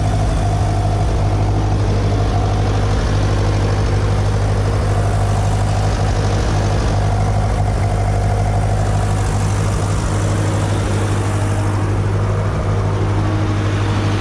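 Tractor engine running at a steady speed, with a constant low hum.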